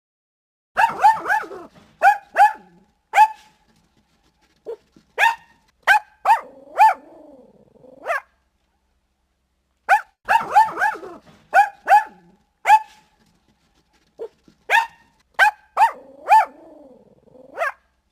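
A dog barking in bursts of sharp, pitched barks, each run ending in a longer wavering whine. The same sequence of barks plays twice.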